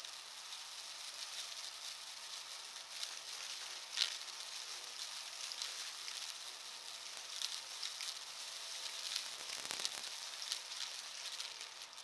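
Upright vacuum cleaner sucking dry debris off a carpet: a steady rushing hiss full of small crackles and ticks as crumbs and grit rattle up into the cleaner, with one sharper crack about four seconds in.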